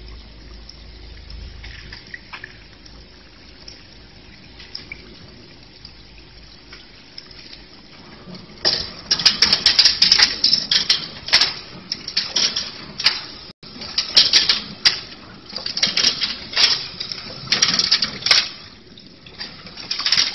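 Double-wire chain link fence weaving machine running, clattering and rattling in irregular bursts as it forms wire into spirals, starting about halfway through after a faint steady hiss.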